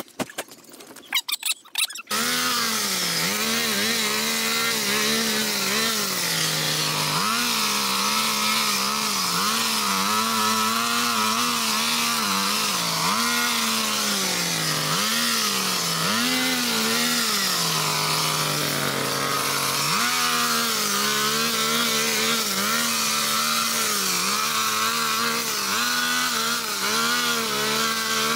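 After a few sharp clicks, a handheld petrol power tool's small engine starts about two seconds in and runs under cutting load, revving up and down repeatedly.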